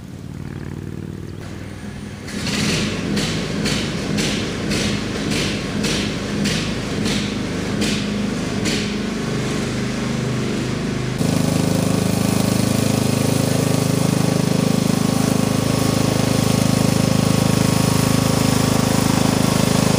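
Riding lawn mower engine running, with a rhythmic knocking about twice a second in the first half. About eleven seconds in the sound jumps to a louder, steady engine drone.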